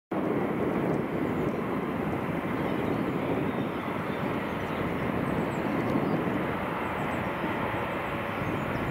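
Boeing 787's jet engines running on the runway before take-off, heard from across the airfield as a steady, even noise that starts abruptly a moment in.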